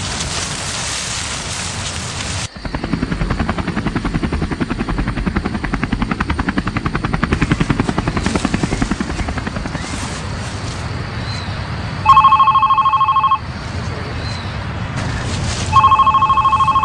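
After a steady hiss, a helicopter's rotor pulses rapidly and evenly for about ten seconds. Then a Samsung mobile phone rings with a loud two-tone electronic beep, twice, each ring lasting about a second.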